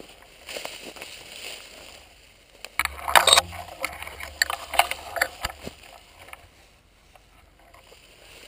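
Handling noise from a camera mounted on a shotgun as the gun is moved low through tall dry grass: scrapes, knocks and grass rustling against it. The noise is busiest and loudest in the middle, then quietens near the end.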